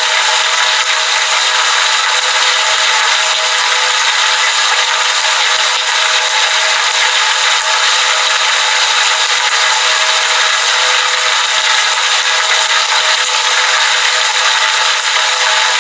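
Heavy rain falling, a steady dense hiss with no breaks and little low rumble.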